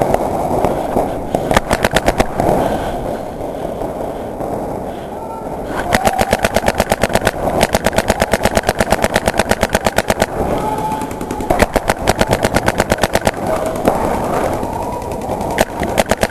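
Paintball marker firing rapid strings of shots, about ten a second, in several bursts lasting one to three seconds.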